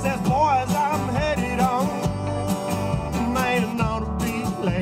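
A live country band playing between sung lines: a wavering melodic lead over a steady bass and a regular beat.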